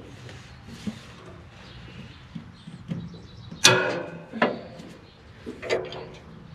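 A few sharp metallic knocks and clanks of tools and parts against the combine, the loudest about three and a half seconds in with a brief ring, over a steady low hum.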